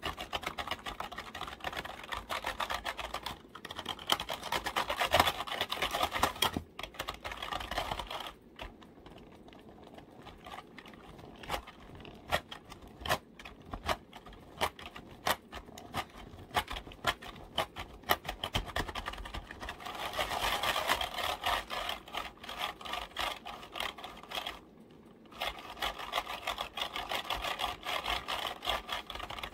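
Computer keyboard keys tapped in fast runs of clicks, thinning to scattered single taps through the middle and picking up again later, with a brief pause near the end.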